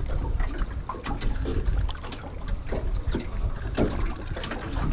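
Wind rumbling on the microphone and water lapping against a small boat's hull, with scattered small clicks and knocks.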